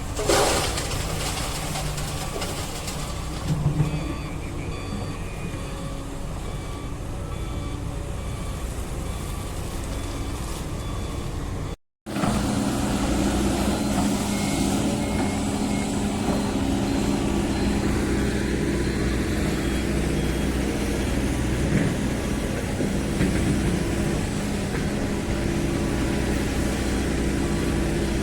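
Diesel engines of hydraulic excavators running steadily while unloading stone from a barge, with faint short high beeps repeating. The sound cuts out briefly about twelve seconds in and comes back with a louder engine hum.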